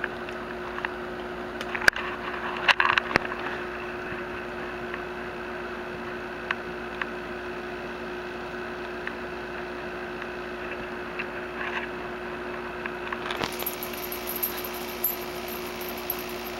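A cat licking ice cream from a waffle cone: soft scattered clicks and taps over a steady low hum, with a few louder clicks about two to three seconds in and its metal collar tag clinking now and then.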